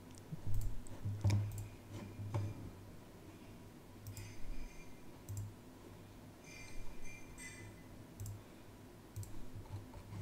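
Scattered clicks of a computer mouse and keyboard at irregular intervals, with a few short clusters of clicking.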